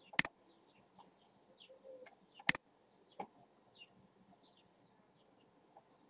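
Two sharp computer-mouse clicks about two seconds apart, with a softer click soon after, over faint birds chirping.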